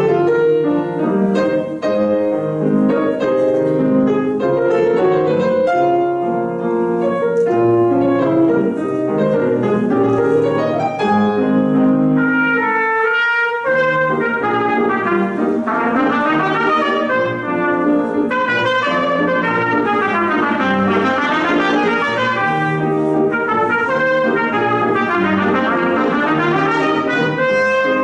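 Trumpet playing a melody with grand piano accompaniment.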